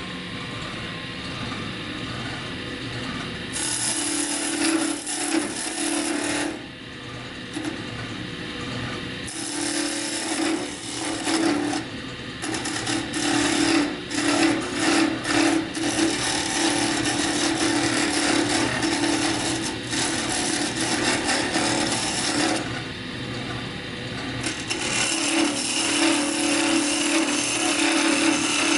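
Wood lathe running with a steady hum while a flat steel scraper cuts into a spinning softwood spindle, giving a continuous rough scraping that eases off briefly twice as the tool is lifted and moved.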